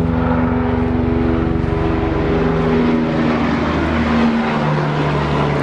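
A motor engine runs steadily throughout, its pitch drifting slightly up and down.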